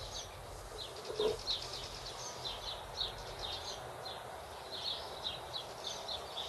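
Small birds chirping in quick, repeated high notes, with a light knock about a second in as metal hub parts are handled.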